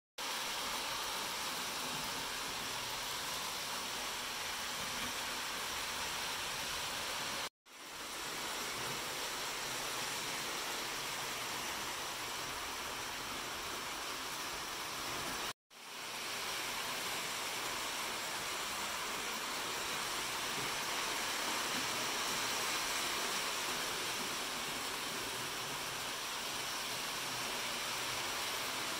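Steady, even hiss of noise with no rhythm or tone, cutting out for an instant twice.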